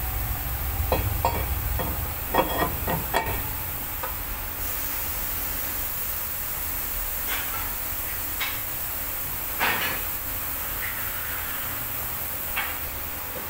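Metal clinks and knocks of a new brake rotor sliding over the wheel studs onto the hub: a quick cluster between about one and three seconds in, then a few single clicks spread out. A steady hiss runs underneath.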